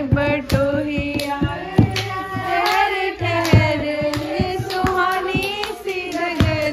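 Several women singing a Hindi film song together without instruments, with hand-clapping keeping the beat about twice a second.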